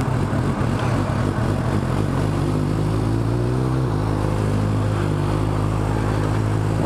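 Suzuki motorcycle engine running as the bike rolls along at low speed. Its pitch climbs for about a second, drops sharply about four seconds in, then holds steady.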